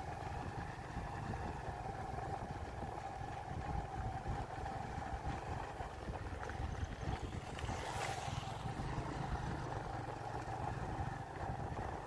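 Engine of a vehicle travelling on a gravel road, running steadily with a constant tone over heavy wind and road rumble. An oncoming motorcycle passes close by about eight seconds in.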